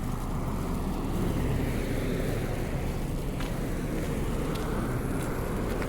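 Road traffic passing, a steady rush of tyre and engine noise that swells slightly about a second in, with some wind on the microphone.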